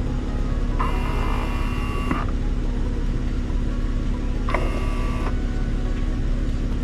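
A steady hum of the running van and its ventilation, broken twice by the whir of a small electric motor: once for about a second and a half, starting near the first second, and again for under a second about halfway through.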